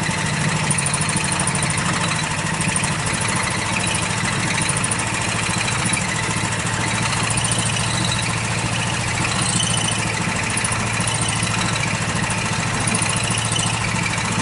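A miniature railway locomotive's engine idling steadily, with an even low hum.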